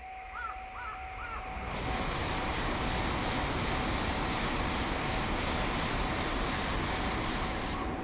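Crows cawing three times in the first second and a half over the steady ringing tone of a railway level-crossing alarm. At about two seconds a loud, even rushing noise sets in and holds until it cuts off near the end.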